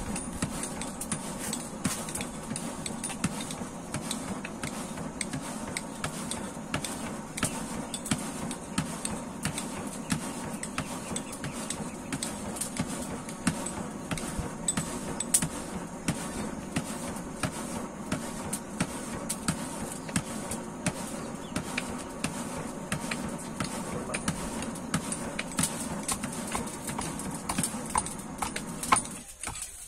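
Scattered light knocks and taps as a new handle is worked into a sledgehammer head, over a steady low hum.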